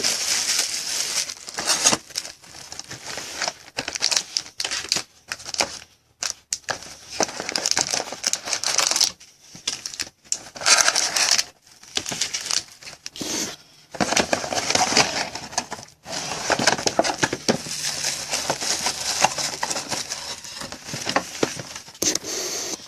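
Plastic wrapping on a box of trading cards and its packs crinkling and tearing as they are opened by hand, in irregular bursts with short pauses.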